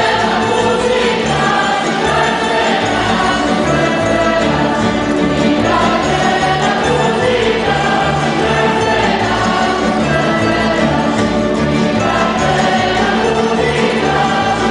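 Tamburica band of plucked folk lutes playing a Croatian folk tune with a steady bass beat, while a mixed group of voices sings along in chorus.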